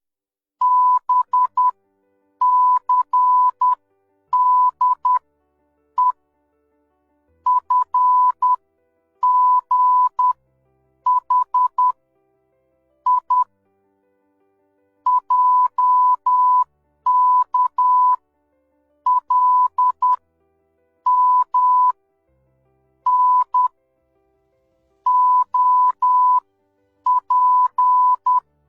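Morse code sent as a single steady beep tone, keyed in short and long pulses (dots and dashes) grouped into letters with silent gaps between them.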